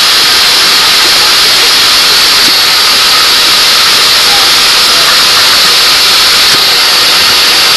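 Loud, steady hissing whir of a FIRST robot's ball shooter running, with no change in pitch.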